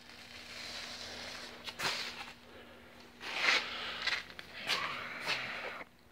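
Soft movement noises and breaths close to the microphone, several short hissy ones spaced about a second apart, over a faint steady hum.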